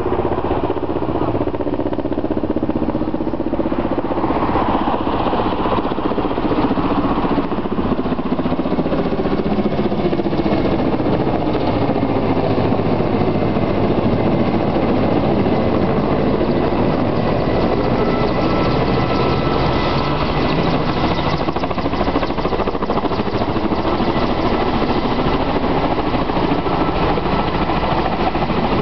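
Firefighting helicopter flying low overhead with a water bucket slung below on a long line: loud, steady rotor and turbine engine noise.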